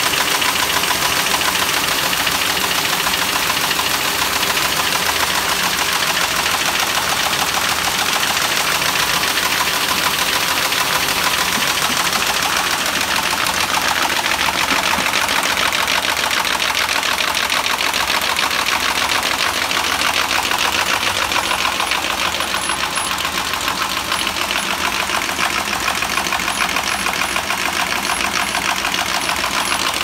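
2007 MBO T800 buckle folding machine running with sheets feeding through its fold plates: a loud, steady mechanical clatter with a fast, even rattle.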